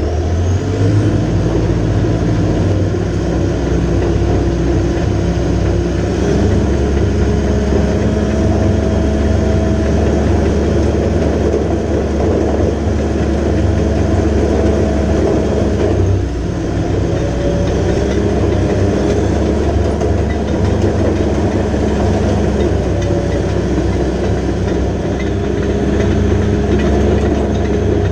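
John Deere 450J LT crawler dozer's diesel engine running hard as the machine works. It revs up at the start and dips briefly about two-thirds of the way through.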